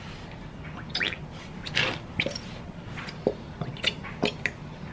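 Bottle of school glue being squeezed out into a bowl, giving a string of short, irregular squelches and sputters.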